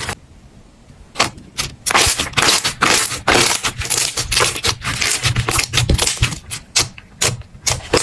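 Slime being squeezed and pressed, giving a rapid, irregular run of crackling pops and clicks that starts about a second in.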